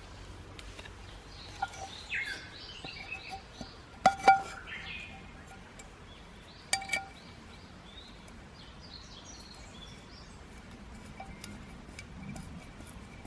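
A Japanese green woodpecker sings several series of quick repeated whistled notes. Two pairs of sharp, ringing clinks, about four and seven seconds in, are the loudest sounds.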